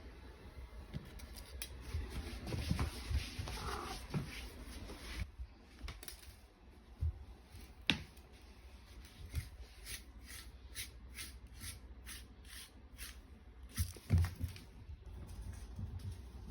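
Cats playing with a toy: rustling and light knocks, a sharp click about eight seconds in, then a run of even ticks about two or three a second, and a couple of thumps near the end.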